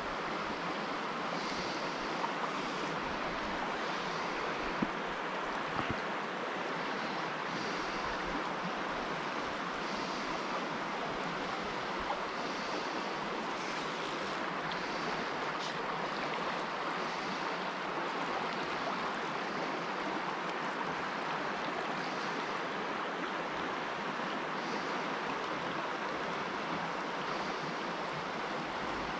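Creek water rushing steadily over rocks, with a few faint clicks.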